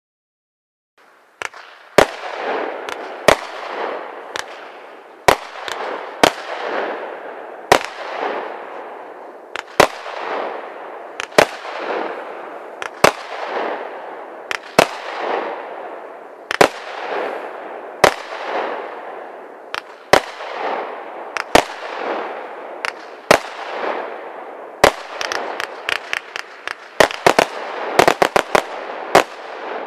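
Pyro King 'Buck Fever' 25-shot firework cake firing, starting about a second in. Sharp reports come about every one and a half seconds, each followed by a fading crackle of the bursting stars, and it ends in a quick flurry of shots.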